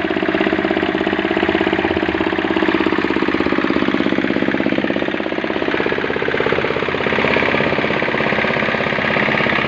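Small 8 hp diesel engine driving a cement mixer, running steadily with a fast, even knock. Its tone shifts a little about halfway through, with more rattle after that.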